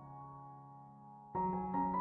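Background piano music. Held notes fade away, then new notes are struck about a second and a half in.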